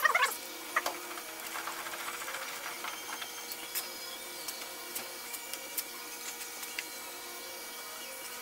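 Combination belt-and-disc sander running free with a steady motor hum, with scattered light clicks and brief faint touches as a rough-cut nav light lens is worked at it.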